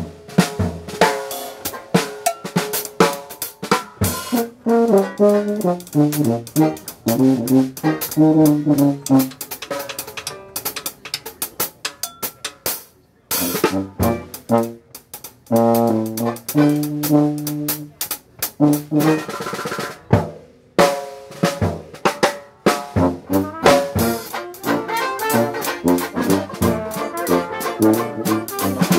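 Live Dixieland jazz band playing: trombone and tuba lines over a drum kit and banjo, with sharp drum hits throughout and a couple of short stops partway through.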